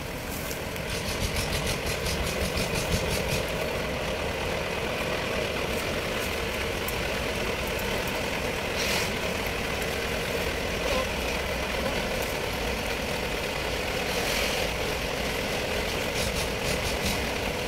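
Engine idling steadily, an even mechanical hum that does not change in pitch.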